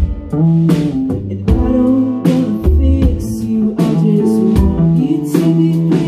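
Rock band playing live: electric guitar, bass guitar and a steady drum beat, with a woman singing.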